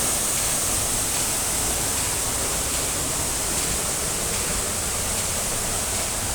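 Waterfall: falling water rushing in a steady, unbroken roar of noise.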